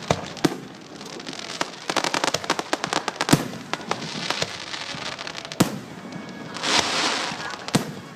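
Aerial fireworks shells bursting with sharp booms several seconds apart. About two seconds in comes a dense run of rapid crackling pops, and near the end a hissing swell.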